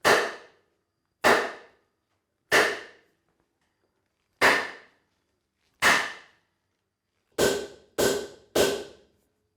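Eight hammer blows striking wood, driving together a tight-fitting kanawa-tsugi scarf joint. Each blow is sharp and dies away quickly. They come at first more than a second apart, then three come faster near the end.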